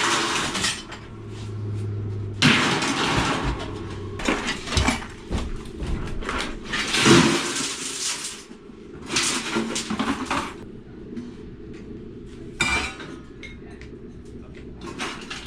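Pieces of scrap metal being thrown and tipped onto a pile, clanking and clattering in several loud bursts with quieter rattling between them.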